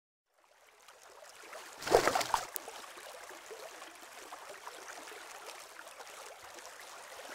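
Flowing stream water fading in as a steady rush, with a brief, louder splash about two seconds in.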